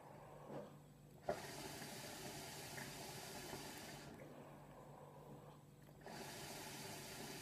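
Hookah water bubbling faintly as the smoker draws through the hose: two long pulls with a quiet pause between them, and a sharp click as the first pull begins.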